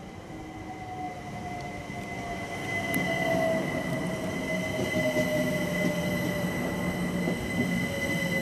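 London Overground Class 378 electric multiple unit pulling into the platform and slowing to a stop. Its electric whine falls steadily in pitch over a high steady tone and rolling rumble, growing louder as the carriages draw alongside.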